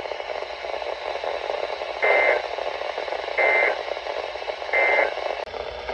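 NOAA Weather Radio receiver sending three short bursts of the digital SAME end-of-message code, evenly spaced about a second and a half apart, over steady radio hiss. The bursts mark the end of a severe thunderstorm warning broadcast.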